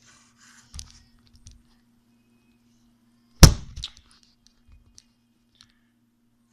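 A single sharp knock on a hard surface about three and a half seconds in, followed at once by a smaller knock, with a few faint taps earlier and a faint steady hum.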